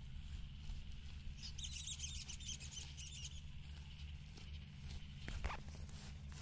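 Green fodder being cut by hand in a field, with crisp snipping and rustling of leafy stalks. A rapid run of high ticks comes about a second and a half in, and a few sharp clicks follow near the end, over a low steady hum.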